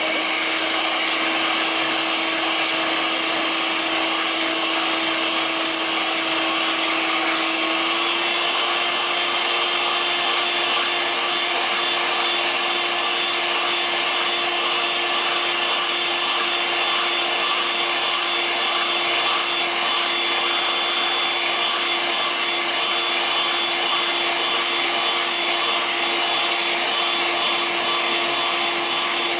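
Electric hand mixer with a whisk attachment running steadily, whisking egg whites for meringue. Its whine steps up slightly in pitch about eight seconds in.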